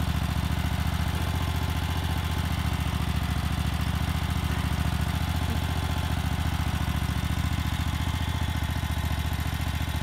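Small tractor-loader-backhoe's engine idling steadily, an even low run of firing pulses with no revving.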